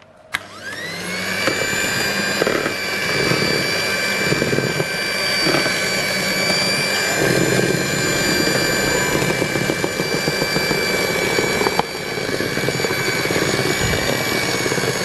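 Electric hand mixer switched on with a click, its motor whine rising briefly and then holding steady at its lowest speed. The beaters churn flour into a thick cake batter.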